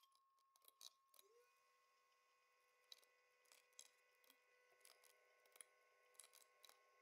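Near silence: room tone with faint, scattered clicks of computer keyboard typing and mouse clicks, about a dozen in all.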